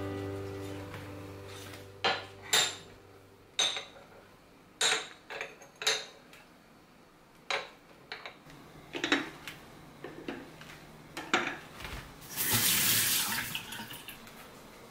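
Water running from a bathroom tap into the sink fades out. Then come a series of light clinks and knocks as small ceramic toothbrush holders and mugs are handled and set down on the sink and counter. A brief rush of running water comes about twelve seconds in.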